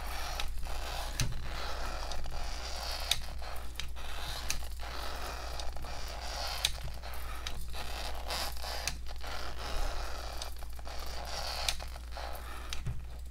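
Small hobby servos in a 3D-printed robot leg whirring and buzzing as the leg repeats a walking motion. The gear noise swells and eases every few seconds as the joints move, with small clicks.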